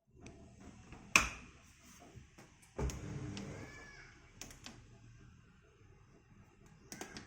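A sharp click about a second in, then about a second of scraping or rustling, followed by a few light ticks.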